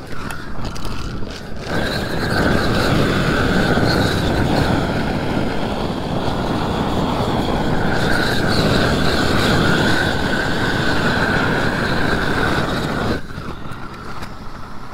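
Propane roofing torch turned up to full flame, a steady rushing noise with a high whistling tone, heating the bitumen edge of a torch-down patch so it melts and seals. It opens up about two seconds in and drops back to a lower flame near the end.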